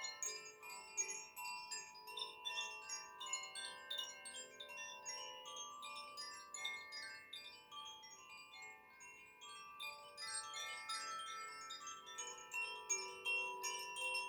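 Koshi chimes, bamboo-bodied wind chimes whose tuned metal rods are struck by an inner clapper, moved continuously: a dense tinkling of many overlapping ringing notes. A different set of notes rings out from about ten seconds in.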